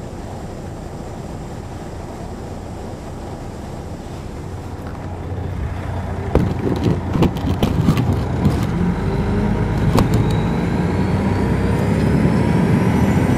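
Detroit Diesel Series 60 engine of an MCI D4000 coach, heard from the rear of the bus. It runs steadily and quietly at first, then grows louder as the bus accelerates from about halfway. Several sharp knocks and rattles come in the middle, and a rising whine builds near the end.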